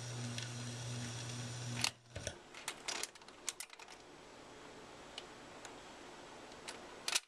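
Garrard record changer cycling at the end of a record: a steady hum through the hi-fi cuts off with a sharp click about two seconds in. A quick run of mechanical clicks follows as the tonearm lifts and swings back to its rest, then a few faint ticks and another loud click near the end.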